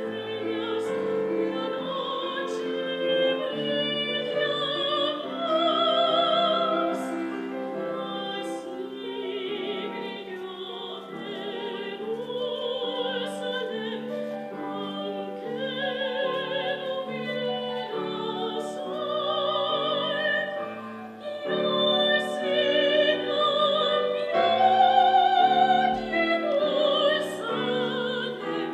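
Operatic soprano solo singing sustained phrases with wide vibrato, accompanied by piano.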